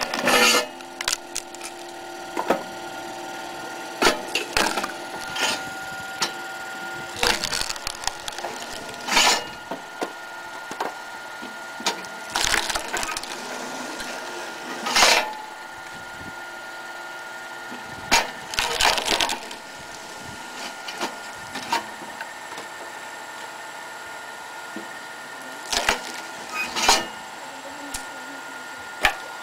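Electric cone (screw) log splitter: its motor-driven spiral cone runs with a steady hum while logs pushed onto it crack and split apart, with a sharp splintering crack every few seconds.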